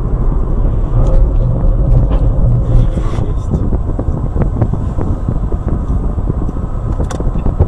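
Steady low rumble of a car driving, picked up inside the cabin by a dashcam, with scattered small clicks and knocks and a sharper click near the end.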